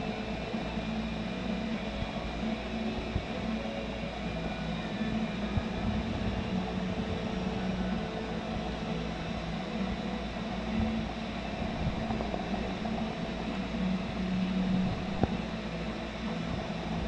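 Steady mechanical hum of running aquarium equipment, a low drone with a few faint clicks.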